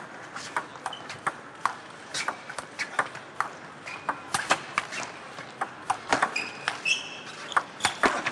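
Table tennis rally: the celluloid ball clicking off the bats and the table in a quick, uneven series, with a few short squeaks of the players' shoes on the court floor.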